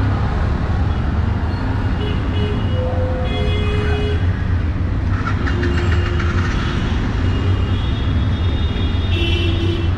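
Street traffic of cars and auto-rickshaws: engines running in a steady low rumble, with short horn toots about two seconds in, again at three to four seconds, and near the end.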